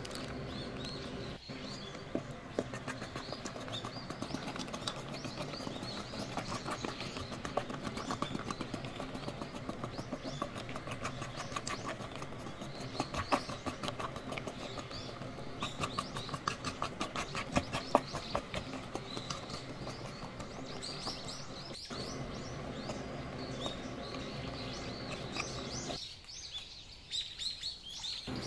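A fork stirring brownie batter in a stainless steel bowl, its quick strokes clicking and scraping against the metal several times a second.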